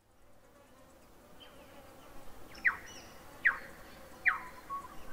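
Background soundtrack fading in: a faint steady buzzing hum with three short chirps that sweep downward in pitch, about a second apart, like bird calls.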